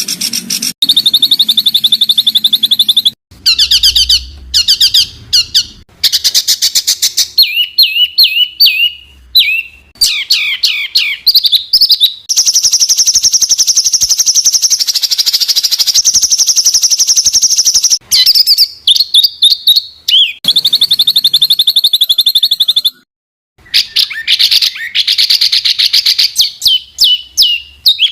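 Edited mix of songbird recordings used as a tutor track: loud, rapid runs of high repeated chirps and trills, each segment breaking off abruptly into a different bird's phrase every few seconds, with a short silent break near the end.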